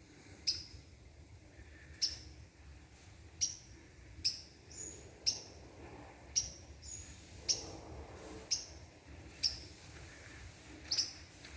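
A bird repeating short, sharp high chirps about once a second, in an uneven rhythm.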